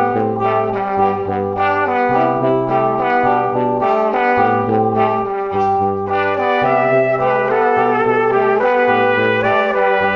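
Background music: brass instruments playing a melody over a repeating bass line.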